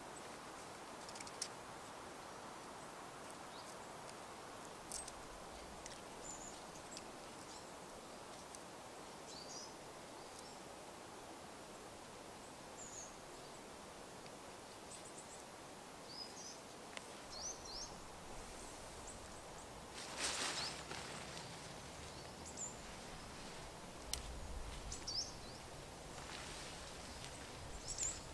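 Woodland ambience: a steady faint background hiss with scattered short, high bird chirps, and a few brief bursts of rustling in the last third.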